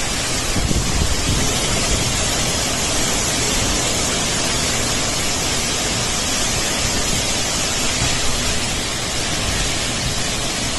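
Heavy, wind-driven cyclone rain with strong wind: a dense, steady hiss, with low gusts rumbling about a second in.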